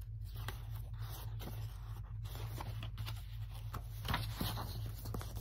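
Picture book pages rustling and scraping as the book is handled and a page is turned, with a few faint scrapes and ticks over a low steady hum.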